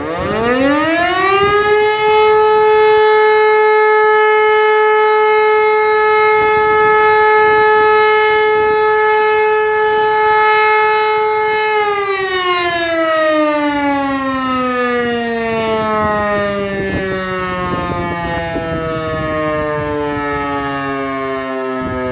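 E57 electromechanical rotary siren sounding a test alarm: its pitch climbs quickly as the rotor spins up, holds one steady tone for about ten seconds, then slowly falls as the motor cuts out and the rotor winds down.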